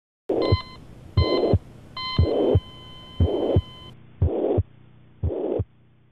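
Slow heartbeat sound effect: a muffled double thump repeating about once a second. Over the first three beats come short high electronic beeps, and the third is held as a steady tone for about two seconds.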